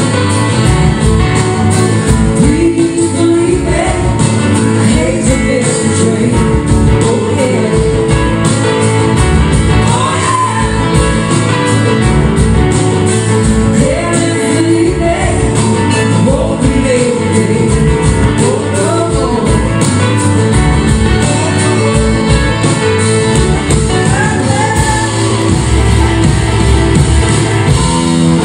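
Live rock band performing with drums, electric guitars, a horn section and singing, heard from the audience in a hall.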